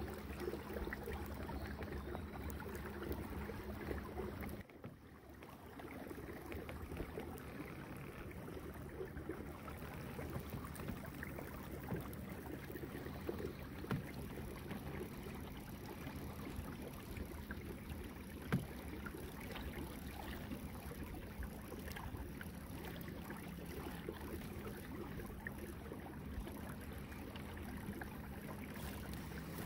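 A kayak under motor gliding across calm water: a steady low motor hum under the wash of water along the hull. The sound drops briefly about five seconds in, and there is a single light click about two-thirds of the way through.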